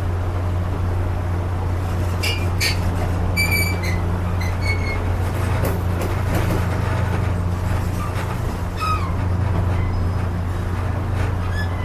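Railroad passenger coach in motion, heard from its open vestibule: a steady low rumble of the car running on the track, with short high-pitched metallic squeaks several times, clustered between about two and five seconds in and again near nine seconds.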